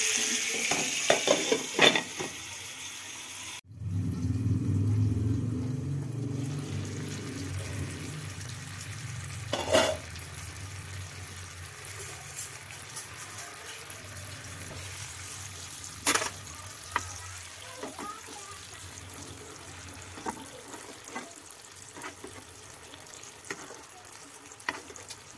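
Tandoori-marinated chicken leg frying in butter in a non-stick frying pan, sizzling steadily. The sizzle is loudest in the first few seconds, and a few sharp clinks stand out later.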